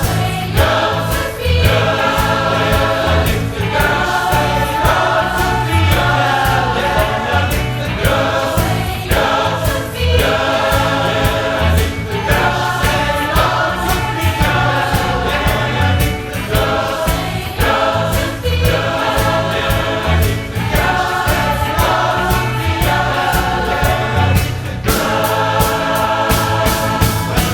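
A large massed choir of about 400 voices singing a 1960s California pop song in harmony, over a steady low beat.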